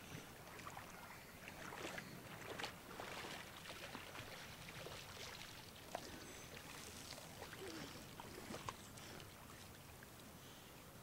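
Faint small splashes and swishes of shallow lake water as a child wades through it, coming irregularly over a soft wash of water at the shore.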